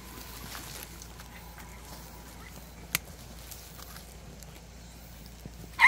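Quiet outdoor ambience with faint scuffs and rustles, a single sharp click about halfway through, and a dog's bark starting right at the end.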